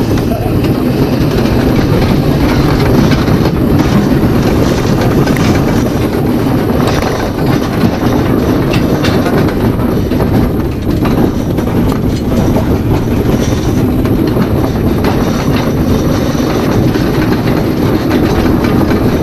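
Marshall steam roller under way on the road: a loud, steady mechanical rumble and clatter from the engine, gearing and iron rolls.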